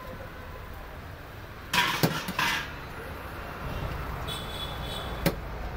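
Metal utensil scraping and clinking on an iron dosa griddle: a loud rasping scrape about two seconds in and a single sharp clink near the end, over a steady hum of street traffic.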